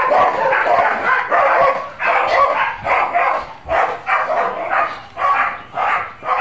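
Dogs barking over and over: a close run of barks at first, then about two barks a second.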